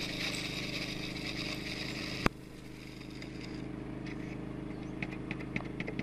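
An engine runs steadily in the background. There is a sharp click a little over two seconds in, and faint light ticks later on as gold flakes are poured from a plastic weigh boat into a scale's pan.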